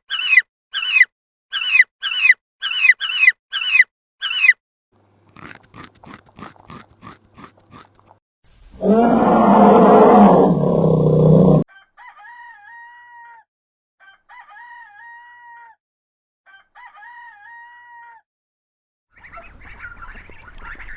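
A run of different animal calls one after another: about ten quick falling chirps, then faint rapid clicks, then one loud call lasting about three seconds, then four evenly spaced whistled calls, with a hiss of noise rising near the end.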